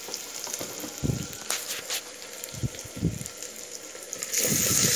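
Onions and dried red chillies frying in hot oil with a steady sizzle, a few knocks and scrapes of a spoon stirring them in the pan; the sizzling gets louder near the end.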